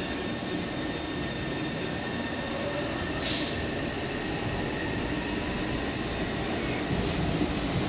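Taipei Metro C381 train standing at a platform with its doors open: a steady hum from the train and station, with a brief hiss about three seconds in.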